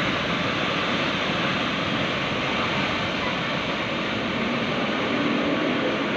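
Steady rushing noise of a landslide, wet earth and muddy water pouring down a hillside.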